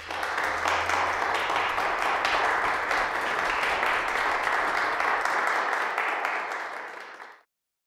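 Audience applauding, a dense clatter of many hands that dies down near the end and then cuts off abruptly.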